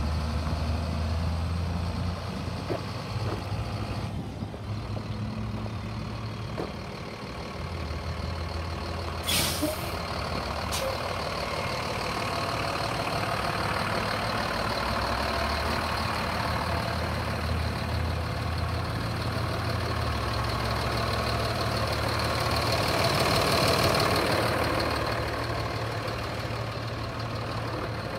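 Diesel engine of a 2006 Freightliner single-axle truck tractor running steadily, with a short sharp hiss of air about nine seconds in.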